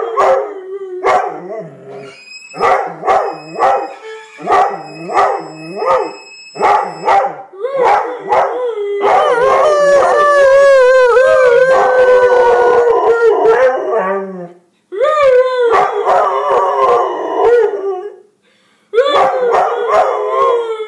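Airedale terrier howling in a string of short rising-and-falling howls, about one a second, drawn out into one long held howl midway, with brief breaks near the end. A steady, very high violin note sounds alongside for a few seconds near the start.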